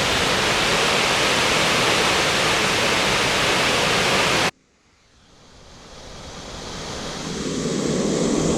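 Loud, steady roar of a large waterfall close by. It cuts off abruptly about four and a half seconds in, then a lower, duller rush of water fades back up.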